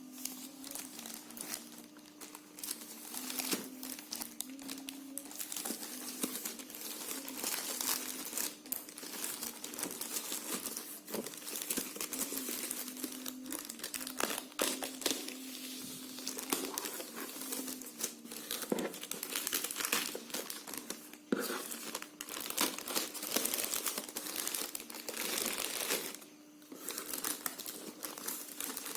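Packaging paper around a new pair of football boots crinkling and rustling as it is handled and unwrapped, in irregular crackles with a few sharper snaps, over a faint steady low hum.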